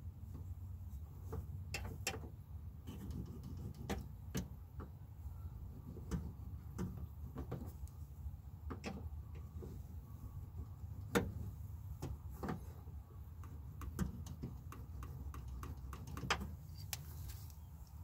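Scattered sharp clicks and taps as hands and pliers work at the cable and parts inside the bare inner door panel, over a steady low hum. The loudest click comes about 11 seconds in.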